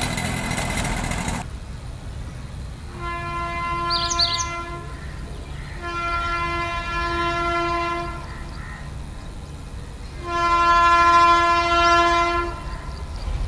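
WAG-9HC electric locomotive sounding its horn in three long, steady blasts of about two seconds each, the last the loudest. In the first second and a half, before the horn, there is the running noise of a passing train.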